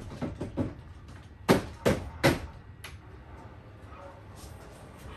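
Hard plastic knocks and clacks as a small cordless fan is handled and set in place: a few light taps, then three sharp knocks in quick succession about a second and a half in, and one lighter knock shortly after.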